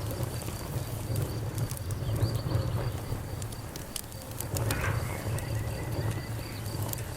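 Burning wood crackling with irregular sharp pops, over a steady low rumble, while crickets keep up a high chirp that pulses evenly about four times a second.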